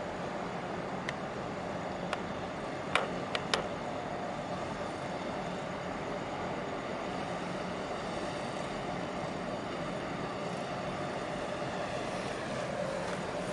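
Steady low drone of ship engines, from a harbour tugboat and the arriving container ship, under a constant wash of harbour noise. A few short sharp clicks come in the first four seconds.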